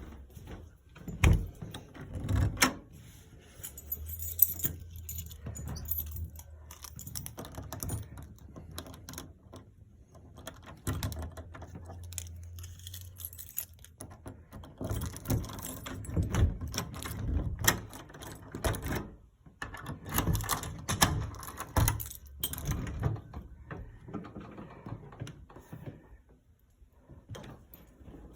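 Irregular clicks, knocks and rattles of objects being handled, with a low steady hum coming in twice for a few seconds.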